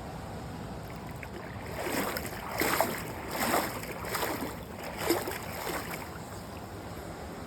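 Feet splashing through cold, shallow creek water: a run of six or seven wading steps starting about two seconds in, over the steady rush of the creek.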